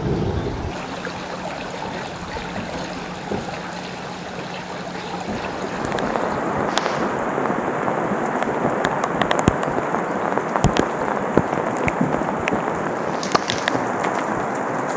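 Steady rain falling, with occasional sharp taps; it grows louder about six seconds in.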